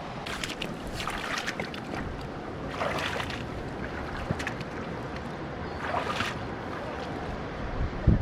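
Steady rush of river water below a dam, mixed with wind on the microphone, with louder hissing surges about 3 and 6 seconds in and a low bump near the end.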